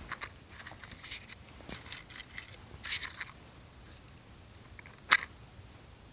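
Dry grass and twigs rustling and crackling in short irregular bursts over the first three seconds, then one sharp snap about five seconds in.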